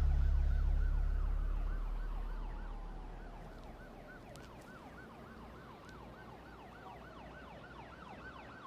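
Emergency vehicle siren yelping with fast, repeated rising-and-falling tones, about three a second, fairly faint, under a deep rumble that fades away over the first few seconds.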